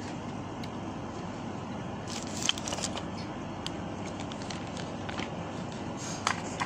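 Sucking on a straw pushed into a tub of vanilla ice cream: the straw is clogged with the ice cream, giving only a few short crackling slurps about two seconds in and again near the end, over steady background noise.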